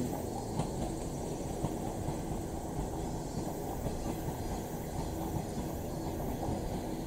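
JR KiHa 110 series diesel railcar running slowly as it comes through the points into a station: a steady, low engine and wheel noise.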